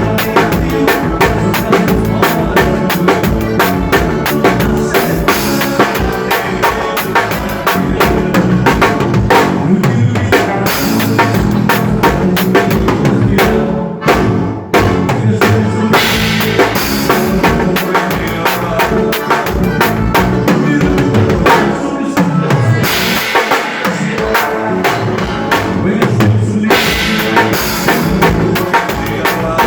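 Drum kit played continuously with quick snare and bass-drum strokes over pitched music with a bass line, with cymbal crashes at several points and a brief break about halfway.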